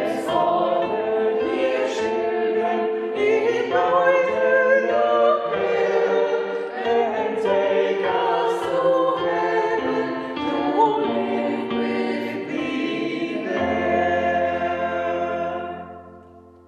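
Choir singing, ending on a long held chord that fades out near the end.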